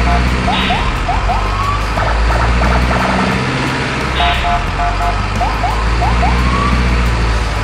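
Looping added soundtrack: a steady low rumble under a row of short beeping tones and quick rising, siren-like whoops. The same pattern repeats about every three and a half seconds.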